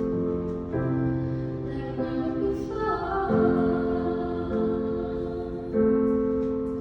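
Piano ballad played live: sustained chords changing about every second and a quarter, with a female voice singing a short phrase near the middle.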